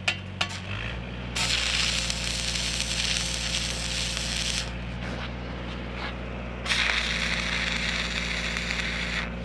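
Stick-welding arc from a 7014 electrode crackling and sizzling in two runs of about three seconds each. A few sharp ticks come near the start. The steady drone of a Lincoln SAE 300 engine-driven welding machine runs underneath.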